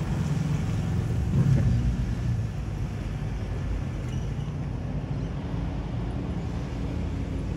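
Road vehicles passing close by, a motorcycle and then a car, with a louder swell about a second and a half in. After that a steadier, quieter low engine hum.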